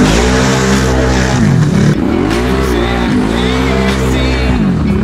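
ATV engine revving hard in about three surges that rise and drop, as the machine plows through deep muddy water with water and mud splashing.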